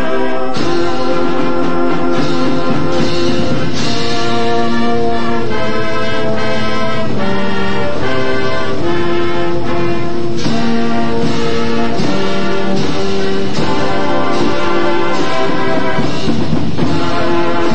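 High school band playing a brass-led piece: trumpets and trombones in full, held chords that change every second or two, with drum strokes marking some of the changes.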